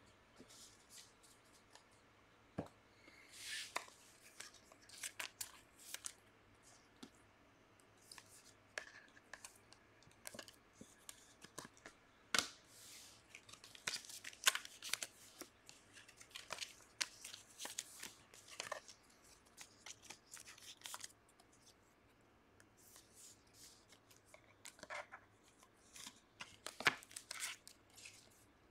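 Trading cards being flipped and slid against one another by hand: faint, irregular swishes and light clicks of card on card.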